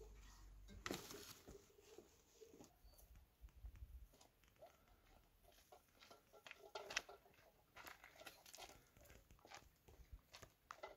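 Faint footsteps on a dry dirt path with light rustling, a few sharper clicks standing out, the strongest about a second in and near the middle.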